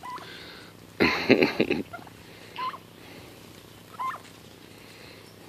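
Free-ranging turkeys and chickens calling: one loud call about a second in, lasting under a second, then a few short, quiet chirps spread through the rest.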